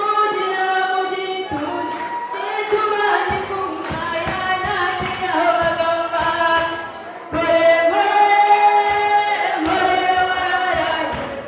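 A young woman singing solo into a handheld microphone, a melody of held and sliding notes, heard through a PA.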